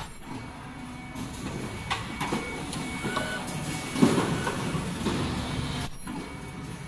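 Automatic cup mask production line running: steady machine clatter with a few knocks about two and four seconds in. A brief, very high-pitched tone sounds at the start and again about six seconds in.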